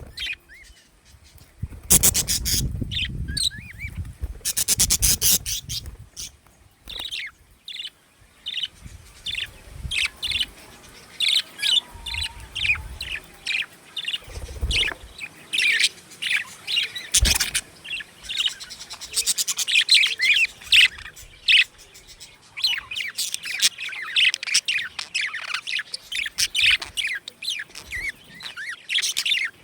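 Budgerigars chirping and chattering in rapid, short, high calls, with a few low thumps mixed in.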